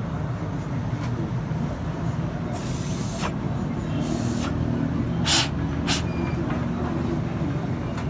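Honda 70 single-cylinder four-stroke motorcycle engine idling steadily. Four short hisses cut in over it between about two and a half and six seconds in.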